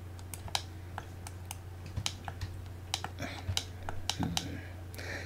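Computer keyboard keys and mouse buttons clicking irregularly, over a steady low electrical hum.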